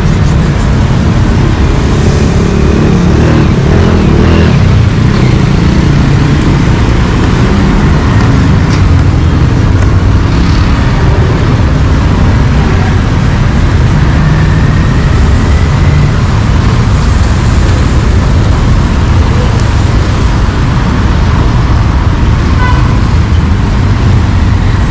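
Steady road traffic noise, with a continuous low rumble of passing vehicles.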